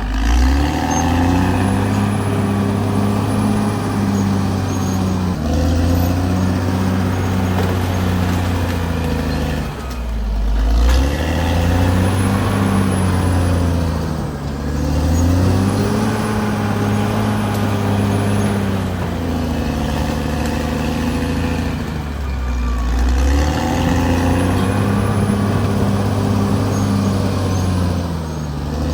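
Caterpillar D6R XL bulldozer's diesel engine working under load. The engine note dips and climbs back several times as the machine lugs and recovers.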